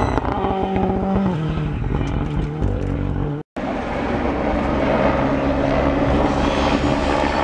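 Ford Fiesta rally car passing at speed, its engine note stepping down as it goes by. After a sudden cut about three and a half seconds in, another rally car's engine runs with a steady note from further off as it approaches a corner.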